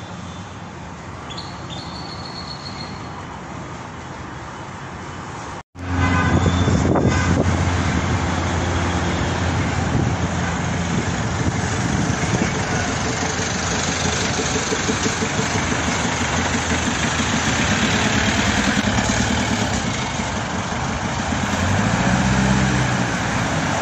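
Twin-engine propeller airplane flying low overhead, a steady rumble of engines and propellers. It is quieter at first, then cuts out briefly about six seconds in and comes back much louder.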